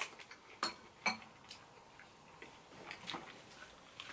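Spoon and chopsticks clinking against ceramic bowls: a handful of separate light clicks, some with a short ring. The loudest comes right at the start.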